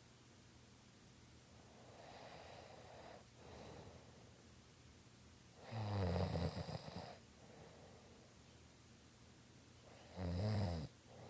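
Snoring: a couple of soft breaths, then two loud snores about four seconds apart, the first longer than the second.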